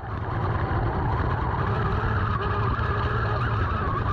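3D-printed RC tank driving on its tracks, its 775 DC motors and printed gearboxes running steadily.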